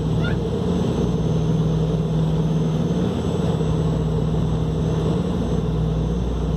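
Douglas DC-3's twin radial engines and propellers droning steadily in flight, heard from inside the cabin.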